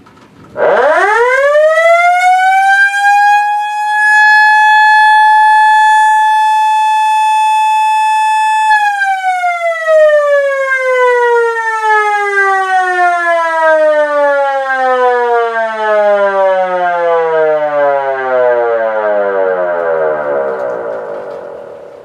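Outdoor civil-defense warning siren sounding once. It winds up quickly to a steady high tone, holds for about six seconds, then winds slowly down in pitch, its level wavering, and fades out near the end.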